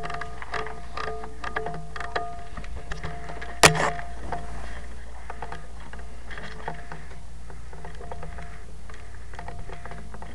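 Background music with steady held tones and a light, even ticking beat, broken once, a little over a third of the way in, by a single loud sharp crack.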